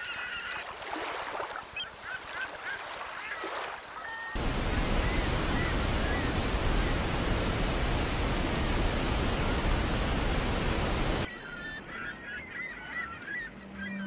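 A large flock of gulls calling, many cries overlapping. From about four seconds in until about eleven seconds in, a loud, even roar of a waterfall covers the calls, starting and stopping abruptly.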